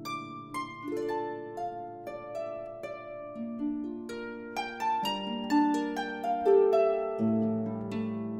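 Background music: a melody of plucked-string notes, a new note about every half second, over held low bass notes that change about seven seconds in.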